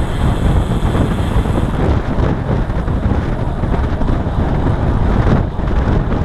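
Loud, steady wind buffeting on the microphone of a camera on a road bike moving at speed, heaviest in the low end.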